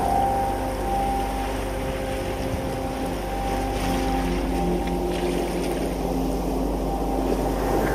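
Ambient drone music: several steady low tones held over a wash of tidepool water noise, with single tones dropping out and new ones entering one at a time.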